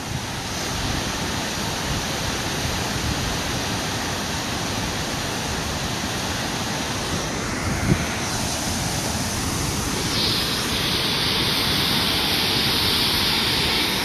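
Loud, steady rushing of a large waterfall close by, with wind buffeting the microphone. A single light knock comes about eight seconds in.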